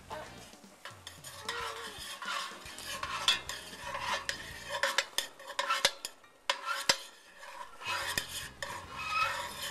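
A metal spoon stirring chopped onions, peppers and garlic in an enamelled cast-iron pan, with irregular scrapes and clacks against the pan, over a light sizzle of the vegetables frying in oil.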